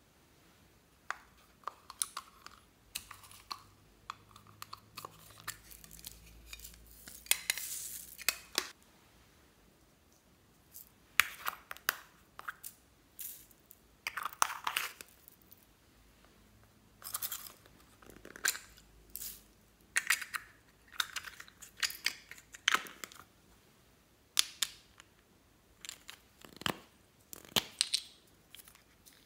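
Close handling sounds of small plastic items, a plastic toy egg and lip balm tubes: scattered sharp clicks and taps with short rustles in between, irregular.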